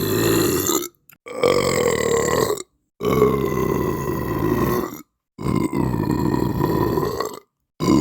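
Person belching: a run of long, drawn-out burps, one after another, each lasting one to two seconds with short dead-silent breaks between them.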